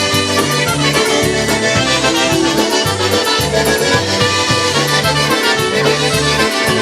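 Live polka band playing an instrumental introduction, led by accordion over an oom-pah bass line alternating notes on the beat, with a steady cymbal beat.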